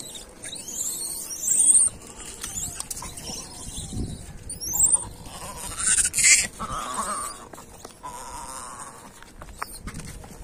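Gray langurs calling: several short, high squeals that rise in pitch, a loud cry about six seconds in, then a lower, drawn-out call.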